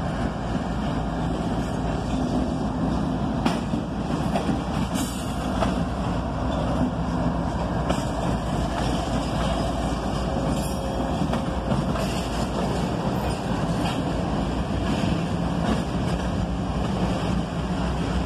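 A pair of CSX diesel-electric freight locomotives passing close by, engines running with a steady low hum and a few sharp clicks. Near the end the double-stack container cars behind them begin rolling past.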